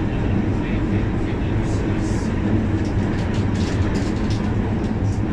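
Steady running noise inside a Guangzhou Metro Line 6 linear-induction-motor train car: an even low rumble with a hum.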